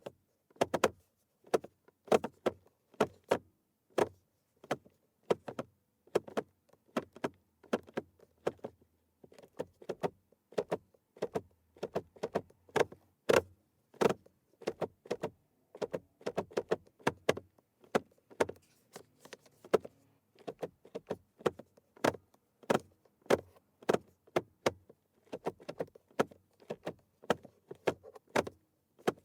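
Car turn signal and wiper stalk being flicked back and forth, making a long series of sharp plastic clicks, often in quick pairs, about one to two a second.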